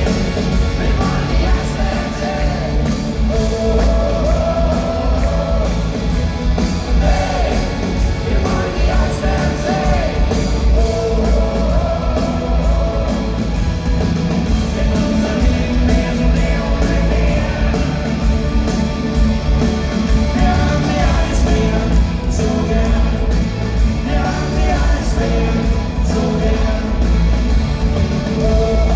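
Live rock band playing a song, with electric guitars, drums and a lead vocal, amplified through the PA of a large concert hall.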